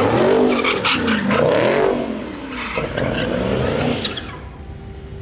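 A car engine revved hard in about five quick rising-and-falling blips, then settling to steadier, quieter running near the end.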